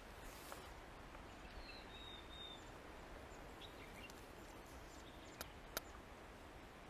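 Faint natural ambience: a quiet steady hiss with a short, high bird whistle about two seconds in and two brief clicks near the end.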